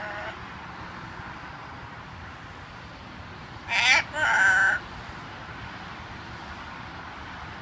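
Green-winged macaw calling twice about four seconds in: a short, speech-like note and then a longer one, wavering in pitch.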